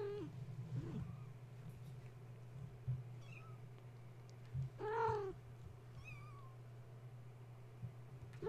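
Cats meowing among a mother cat and her young kittens: one meow at the start, a louder one about five seconds in and another at the end, with a few short, high chirps between, over a steady low hum.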